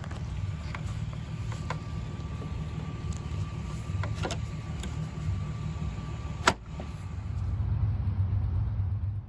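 Low steady rumble of an idling car engine, with several sharp clicks of plastic trim being pressed into place on the liftgate. The loudest click comes about six and a half seconds in.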